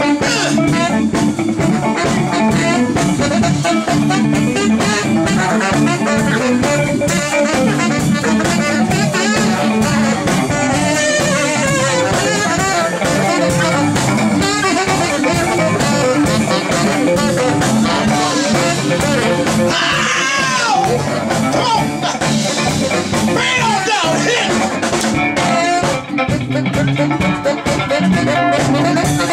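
Live funk band playing an instrumental groove with drum kit and electric guitar, a steady driving beat, with two short rising cries over it about two-thirds of the way through.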